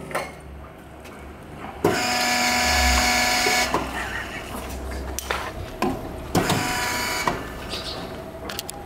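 Hydraulic power unit of a polyethylene pipe butt fusion welding machine: its electric pump motor whines for about two seconds as the control lever is worked, then runs again briefly a few seconds later, with sharp clicks as it starts and stops.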